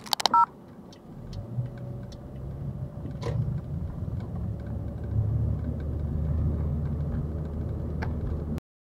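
A car pulls away from a stop and accelerates, its engine and road rumble building as it speeds up, heard from inside the cabin. A short, loud beep sounds at the very start.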